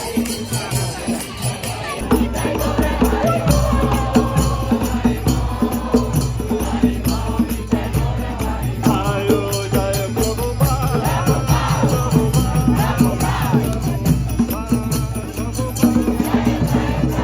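Background music with a steady beat and a shaking, rattle-like percussion.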